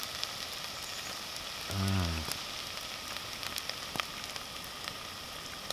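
Campfire crackling and hissing steadily, with scattered faint pops. About two seconds in, a man makes a brief low hum.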